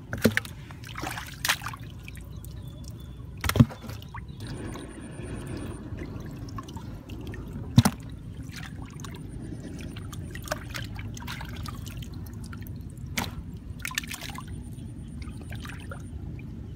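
Hands groping and splashing in shallow muddy water, with a trickling, sloshing sound and a few sharp knocks, the loudest twice, about 3.5 and 8 seconds in.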